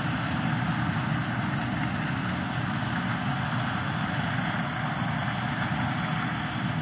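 Case 2388 combine harvesting corn, heard from across the field as a steady mechanical hum of engine and threshing rotor with a noisy hiss on top.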